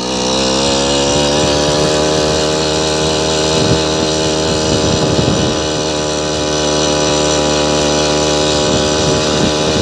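Small kit engine of a motorized bicycle running under way. It revs up over the first second or so, then holds a steady high-revving drone.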